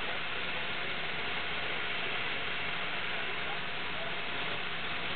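CNC laser cutter cutting 3/8-inch stainless steel plate: a steady, even hiss with a faint steady tone underneath.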